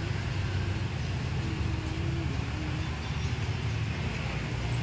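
Busy street ambience: a steady low rumble of vehicle engines and traffic.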